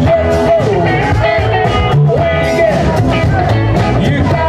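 Amplified live soul band playing: electric guitar and bass over drums, with a lead singer and held, bending melody lines.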